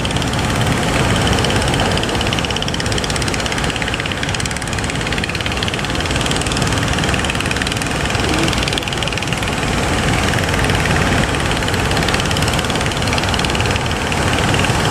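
A fishing boat's engine running steadily under a loud, even rush of noise.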